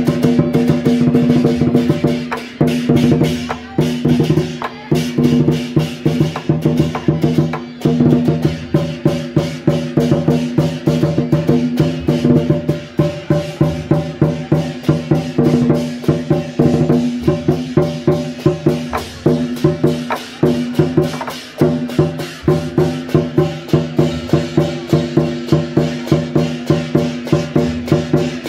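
Temple-procession percussion music: dense, fast drum and wood-block strikes with strong beats about twice a second, over several held steady tones.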